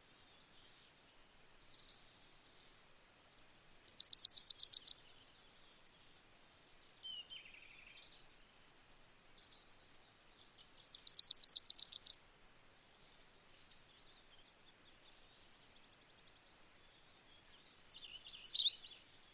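Gray wagtail singing: three quick, high-pitched trilled phrases of about a second each, several seconds apart, with a few faint soft notes between.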